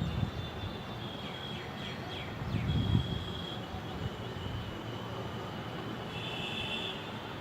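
Steady background noise with a few short high chirps and a low bump about three seconds in.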